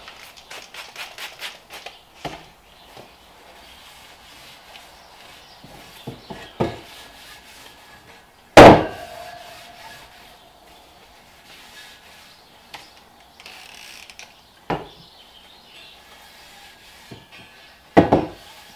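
Cleaning a bare dirt-bike wheel rim by hand. A rapid run of about eight short clicks opens it, then comes faint rubbing and scattered knocks; the loudest is a sharp clank that rings briefly about eight and a half seconds in, with another near the end.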